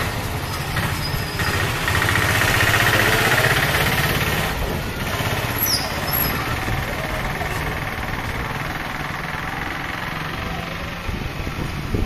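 A steady low engine drone with a hum, running throughout.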